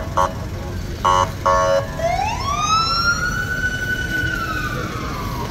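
A few short horn honks, then a siren wails once: its pitch rises over about a second, holds, then slowly falls. A steady traffic rumble runs underneath.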